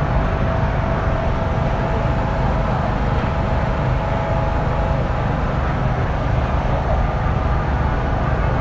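Steady, loud, low mechanical rumble with a constant hum running through it, like a running engine or machine.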